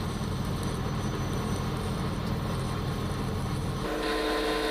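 Stick-welding (SMAW) arc burning a 7018 electrode at 60 amps on an open-root plate pass, a steady hiss over a low hum. A little under four seconds in it gives way to a steady droning hum with a few fixed tones.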